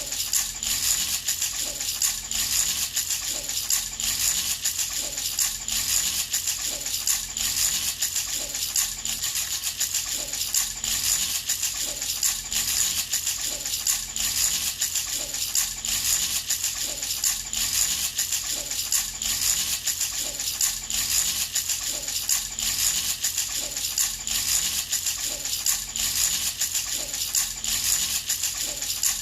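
Baby's toy rattle shaken over and over in an even rhythm, a bright continuous jingle of small beads.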